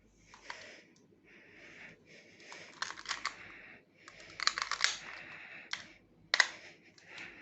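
Handling noise from an airsoft Glock 17 replica pistol: clusters of small clicks and rattles as it is turned over and worked in the hands. The sharpest click comes about six seconds in.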